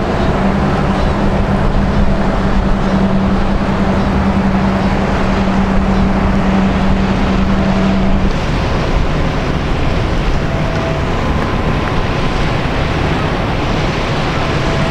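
A passing bulk carrier's engine gives a steady low drone over constant wind and water noise. The drone stops abruptly about eight seconds in, leaving the wind and water.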